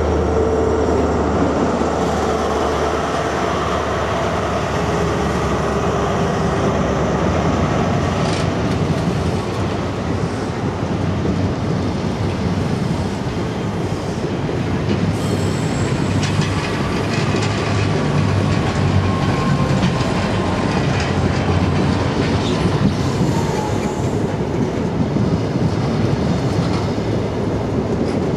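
A diesel multiple unit running slowly alongside the platform, its diesel engine rumbling, with wheels clicking over rail joints and squealing. A faint whine falls in pitch about three-quarters of the way through.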